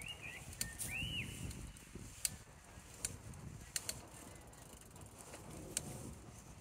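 Bicycle on the move: scattered sharp mechanical clicks and ticks from the bike over low tyre and wind noise, with a couple of short high squeaks in the first second or so.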